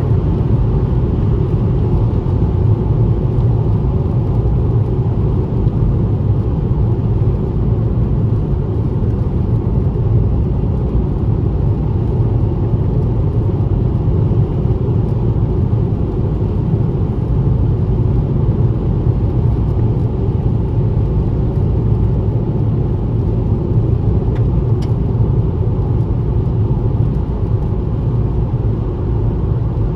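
A car driving at steady highway speed: a continuous low rumble of road and engine noise with no change in pace.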